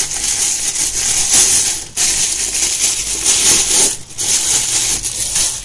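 Thin clear plastic bag crinkling and rustling in the hands, breaking off briefly twice.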